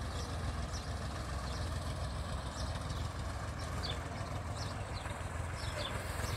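IMT 558 tractor's diesel engine running steadily at low throttle while pulling a three-furrow 11-inch mouldboard plough, growing a little louder near the end. Short high chirps sound over it.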